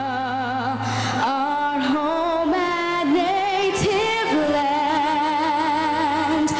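Music with a sung melody: long held notes sung with a wide vibrato over sustained accompaniment.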